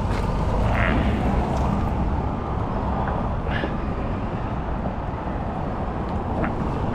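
Steady low rumble of passing road traffic, with two brief faint squeaks, one about a second in and one midway.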